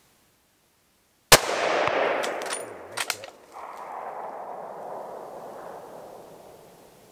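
A single rifle shot: one sharp, loud crack about a second in, followed by a long rolling echo that swells again and fades away over several seconds. A few quick metallic clicks come a second or two after the shot.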